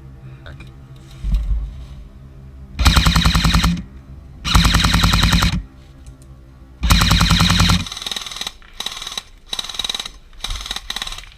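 Airsoft electric gun firing on full auto: three bursts of about a second each, then several shorter bursts close together.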